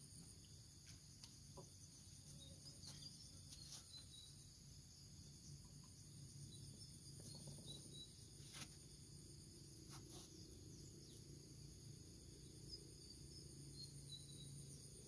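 Faint, steady chorus of insects such as crickets, with a few faint high chirps and soft clicks over it.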